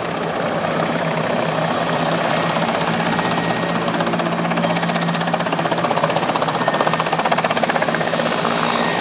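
Mil Mi-171Sh twin-turbine transport helicopter flying past low, its five-blade main rotor beating in a fast, even rhythm over a steady engine drone, growing a little louder through the middle as it turns toward the listener.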